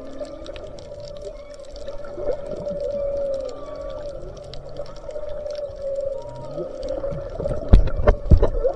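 Humpback whale song heard underwater: a long moaning tone that bends up and down in pitch, with fainter higher glides, over a steady crackle of small clicks. Several loud low knocks come near the end.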